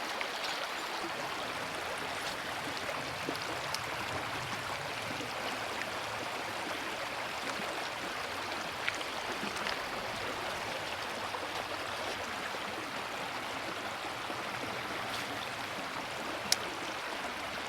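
Creek water rushing steadily over rocks in a shallow riffle, an even hiss of flowing water. A few faint ticks and one sharp click near the end.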